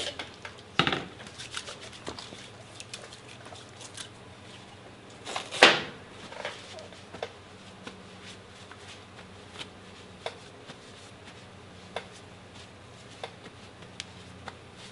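Hands being wiped on a cloth rag: light rustling and scattered small handling clicks, with a sharper knock about five and a half seconds in.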